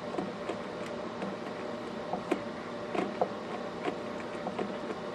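Phillips screwdriver turning out the screw that holds the flapper inside a plastic pond vacuum housing: scattered small clicks and taps over a steady background hum.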